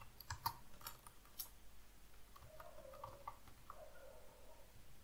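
Quiet keystrokes on a computer keyboard: a handful of sharp typing clicks in the first second and a half, then the typing stops.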